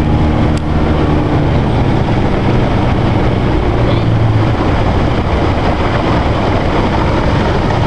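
Outboard motor pushing a small runabout along at speed: a steady engine drone under a loud, even rush of wind and water.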